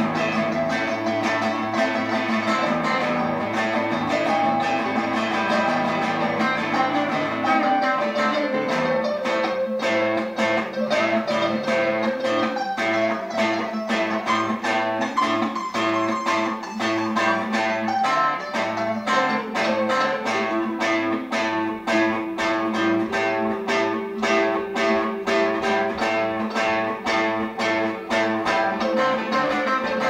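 Acoustic and electric guitars played together in a rock and roll practice jam, strumming chords in a steady rhythm.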